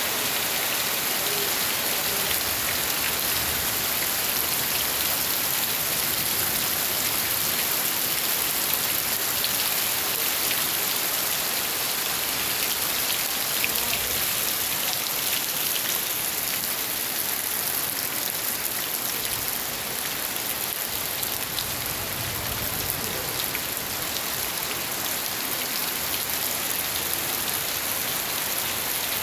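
Heavy tropical rain falling steadily: a dense, even hiss of rain that does not let up.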